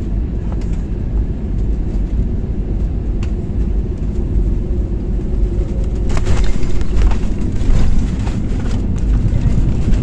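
Jet airliner cabin noise at a window seat on the landing: steady engine and airflow rumble, which about six seconds in grows louder and rougher with rattling as the wheels meet the runway.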